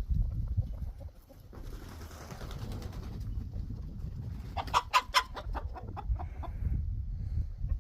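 Domestic chickens clucking, with a quick run of sharp clucks about five seconds in, over a steady low rumble.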